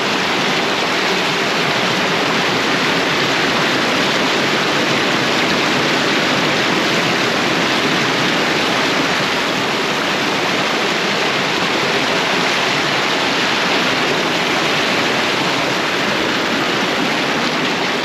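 Waterfall pouring: a loud, steady, unbroken rush of falling water.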